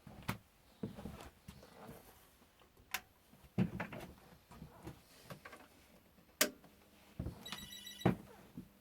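Irregular mechanical clicks and knocks, with a short pulsing electronic beep a little over two-thirds of the way through.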